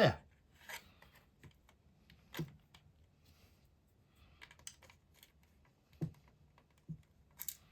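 Sparse light clicks and taps of hard plastic parts being handled as an RC servo is set into the bathtub chassis of a Tamiya St. Dragon buggy, the loudest knock right at the start.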